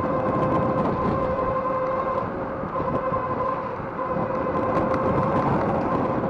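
Wind rushing over the microphone and rolling noise from a Rize Blade 2 electric bike being ridden, with a steady whine through it that dips briefly about two seconds in, and light rattling ticks from the shaking camera mount.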